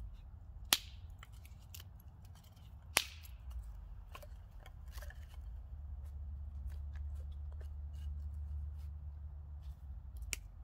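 Dry split kindling sticks clicking and clacking as they are handled and laid in a fire pit, with two sharp cracks about a second and three seconds in, over a low rumble.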